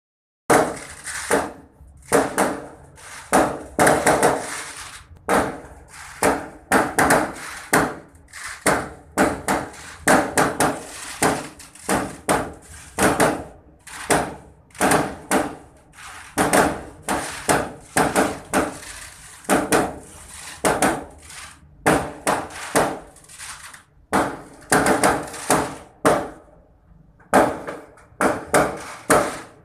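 Fireworks exploding: a long, irregular string of sharp bangs and crackles, one to three a second, each trailing off in a short echo.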